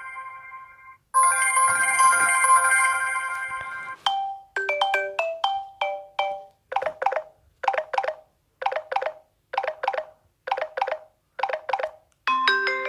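Stock Samsung Galaxy Grand Prime Plus ringtones playing one after another. A chiming tone cuts off about a second in and starts again. A run of short struck notes follows, then a plucked two-note figure repeats about once a second, and a new chord-like tone begins near the end.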